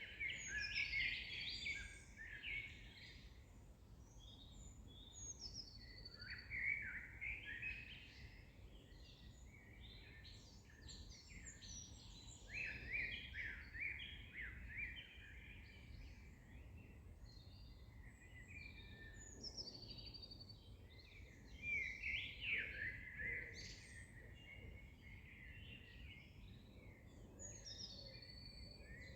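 Several songbirds singing and chirping at once, with busy overlapping phrases of short high notes and trills coming in bursts, over a faint low background rumble.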